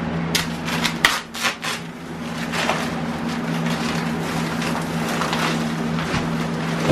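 A paper bag of play sand being slit open with a knife and torn, crinkling and rustling, with a few sharp clatters about a second in as it is handled in a plastic wading pool; the sand then starts spilling out. A box fan hums steadily underneath.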